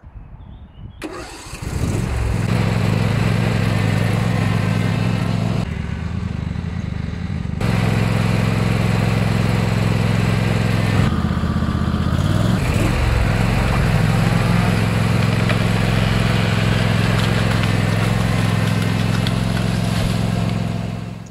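Husqvarna TC238T garden tractor engine started with the key: it cranks about a second in, catches, and then runs steadily, briefly quieter a few seconds in and changing tone for a moment near the middle.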